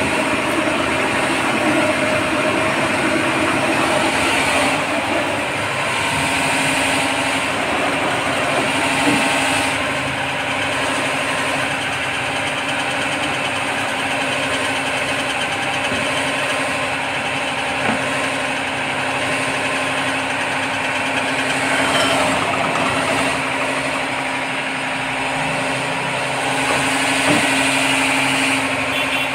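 Electric wet grinder running steadily, its motor humming while the stones grind idli-dosa batter, with a few light clicks along the way.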